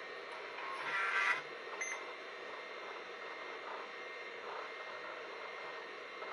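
The 286 PC's speaker gives a short POST beep about a second in, as the Phoenix BIOS finishes its power-on self-test. Under it runs the steady hum and hiss of the running computer.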